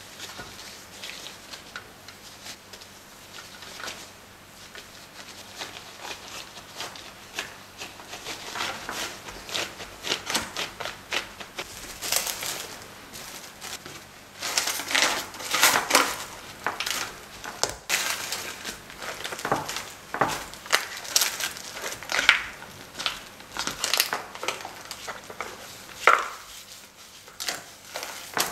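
Plastic wrap crinkling and rustling as a plastic cake scraper is pushed over it to press and smooth shortbread dough in a parchment-lined pan, in repeated scraping strokes. Fainter at first, it grows louder about halfway through.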